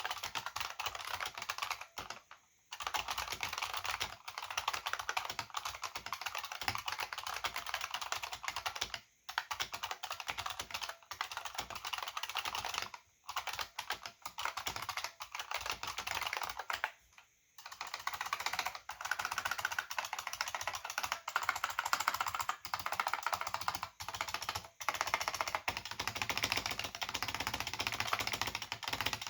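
Fast, sustained typing on an AT&T KBD 305B-AA keyboard with buckling-spring switches and two-part PBT dye-sublimated keycaps: a dense run of key clicks, broken by four brief pauses.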